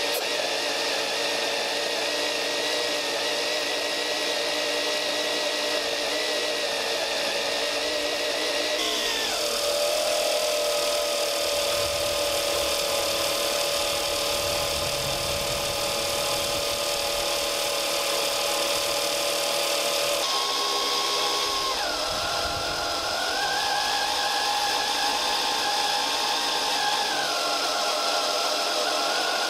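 775 DC motor driving a 3D-printed external gear pump that is pumping thick motor oil, giving a steady motor whine. The pitch drops about nine seconds in, shifts briefly around twenty seconds, then rises and falls again.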